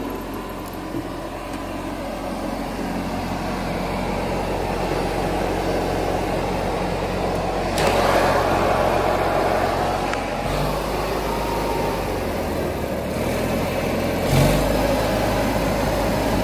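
A 1978 John Deere 400 lawn tractor's twin-cylinder engine runs steadily, growing a little louder over the first half. Two brief knocks stand out, one about halfway through and one near the end.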